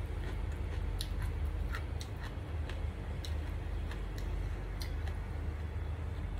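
Chewing and small wet mouth clicks and smacks as rice and fried omelette are eaten by hand, scattered irregularly over a steady low hum.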